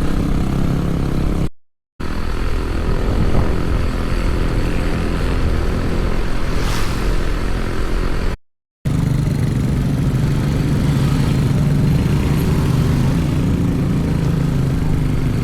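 A motor vehicle's engine running steadily with road and wind noise while travelling. The sound drops out completely twice, for about half a second each time.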